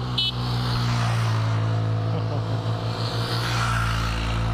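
Motorcycle engine running at a steady pitch close by, with wind and road noise, as it rides alongside and pulls ahead near the end. A brief high ring sounds just after the start.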